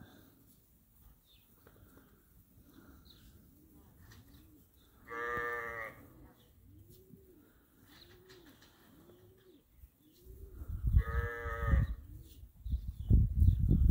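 Sheep bleating: two long calls, one about five seconds in and another near eleven seconds. From about ten seconds in, a low rumbling, thumping noise grows louder underneath.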